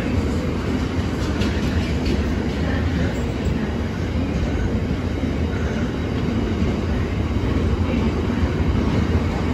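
Freight train's JNA box wagons rolling past close by, a steady low rumble of steel wheels on rail.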